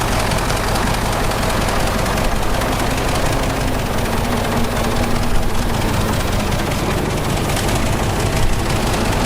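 Heavy diesel earthmoving machine running steadily, a loud, even engine rumble with no change in pace.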